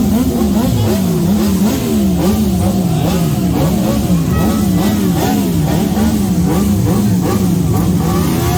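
Motorcycle engine revved up and down over and over, its pitch rising and falling in quick, even swells.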